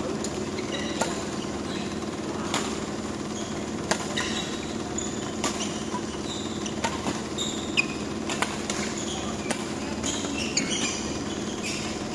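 Badminton rally: sharp cracks of rackets striking the shuttlecock, about one every second or so, with short squeaks of shoes on the court floor in between. A steady low hum runs underneath.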